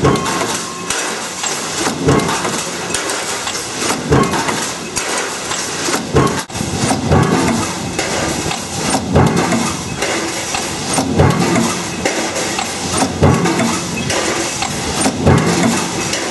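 Power press running a progressive die that stamps pole clamps from metal strip. It strikes about once every two seconds over a constant clatter of machinery.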